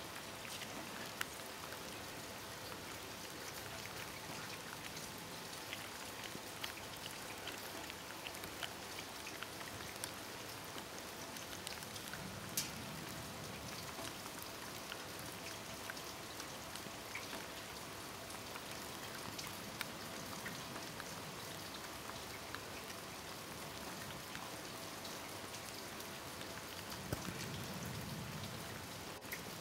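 Steady light rain pattering, with many small sharp drop ticks scattered throughout. A brief low rumbling swell comes about two-thirds of the way through, and a stronger one near the end.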